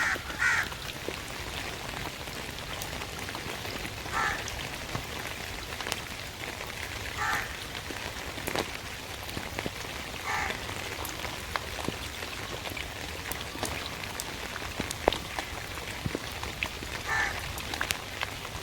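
Steady rain with sharp drips close by, and a crow cawing once every three seconds or so, five short caws in all.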